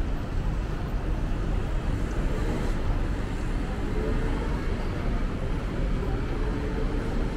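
Steady city street ambience: a low rumble of traffic with faint voices mixed in.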